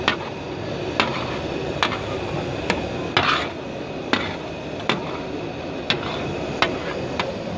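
Long-handled metal spatula clanking and scraping on a large flat metal tawa griddle as chopped liver is stirred and turned, about one sharp clank a second with one longer scrape a little after three seconds, over steady background noise.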